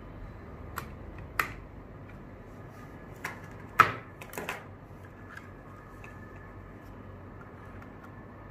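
Several short, sharp plastic clicks and knocks, the loudest about four seconds in, as green pluggable screw-terminal connectors are pushed onto and handled around a controller circuit board.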